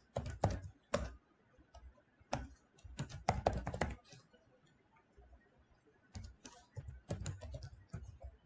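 Typing on a computer keyboard: three short runs of rapid keystrokes with pauses of a second or two between them.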